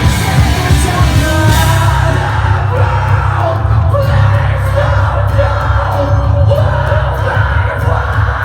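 Post-hardcore band playing live at full volume: heavy bass and drums under yelled and sung vocals, with a long held note through the middle.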